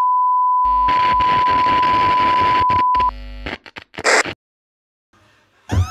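A steady test-tone beep of the kind that goes with TV colour bars, with television static hiss joining under it; both cut off about three seconds in, followed by a few crackles and a short burst of static. Music with gliding tones starts right at the end.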